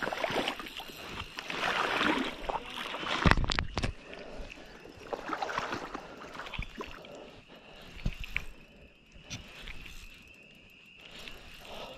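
Water sloshing and splashing while a big hooked fish is fought in shallow water, with jacket fabric rubbing over the microphone. A heavy bump comes about three seconds in.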